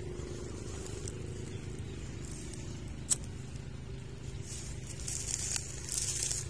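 Steady low buzzing hum of wild honeybees around their nest in dry brush. There is a single sharp twig snap about three seconds in, and brushy rustling near the end.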